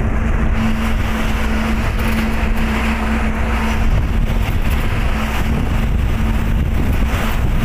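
Truck laden with sand driving at steady speed, heard from inside the cab: a steady engine hum over low rumble and road noise, with some wind noise.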